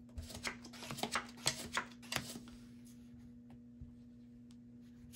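Playing cards being dealt and slid onto a felt blackjack table: a quick run of soft snaps and swishes over the first two and a half seconds, then only a faint steady hum.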